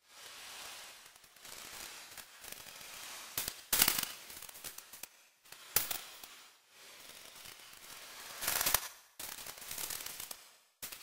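Electroacoustic tape music: swells of hiss-like noise that fade or break off into brief gaps, broken by clusters of sharp crackles about a third of the way in, around the middle, and again about three-quarters through.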